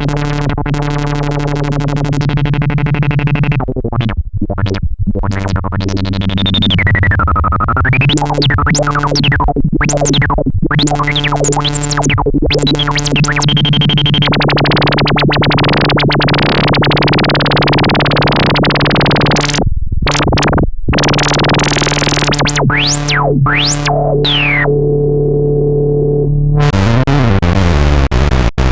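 Roland SH-101 monophonic analog synthesizer holding a low note while its filter is swept open and closed over and over, the tone repeatedly going bright and dark. A few seconds in, a resonant peak glides down and back up; midway there is a brighter, noisier stretch, and near the end the notes change and come faster.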